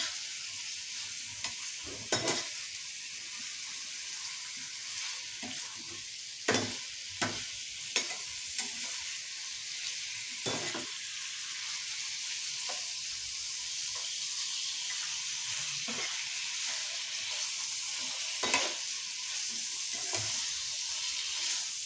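Chicken pieces frying in oil in a non-stick pan, a steady sizzle, while a metal spoon stirs them and now and then clicks and scrapes against the pan.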